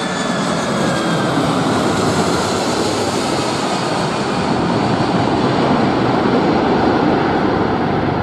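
Boeing 747-400 jet airliner on landing approach passing close by: a loud, steady jet roar with a high whine that falls in pitch over the first second or two.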